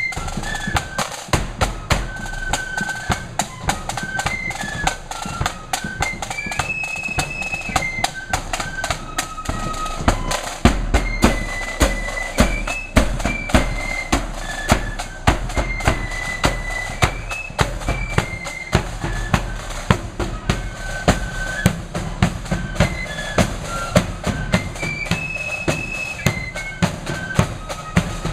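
Flute band playing a marching tune: flutes carry a high repeating melody over snare drums and a bass drum. The drumming hits harder from about ten seconds in.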